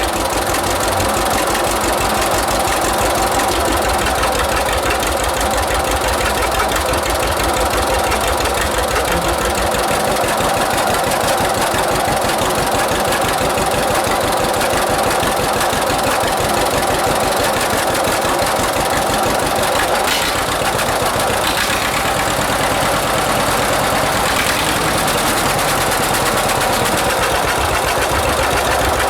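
1946 John Deere AR two-cylinder tractor engine running steadily, its fast, even beat loud and unbroken.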